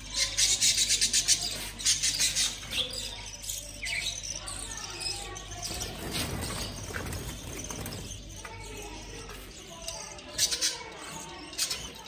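Budgerigars chirping and chattering in their cage, mixed with bursts of rustling from the plastic sheet over the cage; the busiest stretch is in the first two seconds and again near the end.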